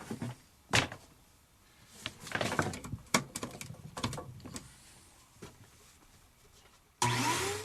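Scattered clicks, knocks and scraping of a vacuum nozzle and hose being handled against the water heater's flame trap, then about seven seconds in a vacuum cleaner motor switches on, its whine rising in pitch before cutting off suddenly.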